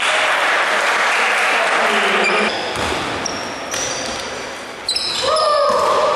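Basketball game in a large gym: the ball bouncing on the wooden floor, shoes squeaking and players calling out. A voice-like call rises and falls about five seconds in.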